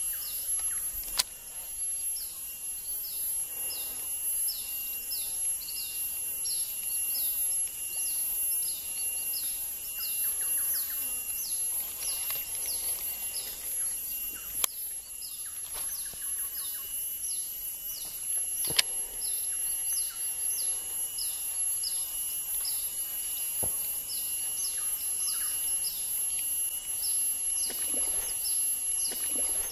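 Outdoor wildlife ambience: short, high falling chirps repeated about two or three times a second over a steady high-pitched whine. Two sharp clicks stand out, one about a second in and one about two-thirds of the way through.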